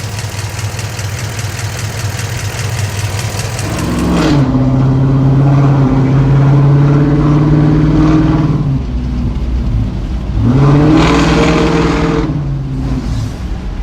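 Chevy Tahoe V8 fitted with headers, idling with a fast even tick that the owner takes for lifter tick. It is then revved twice: the first time held for about four seconds, the second about a second shorter, each time dropping back to idle.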